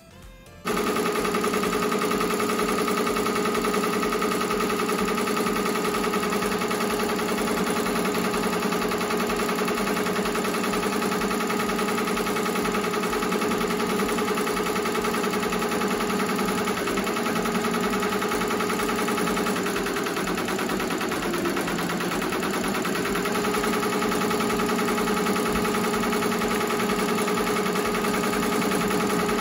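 Ricoma double-head embroidery machine stitching a design at speed, a steady fast mechanical chatter with a constant hum. It starts abruptly about a second in.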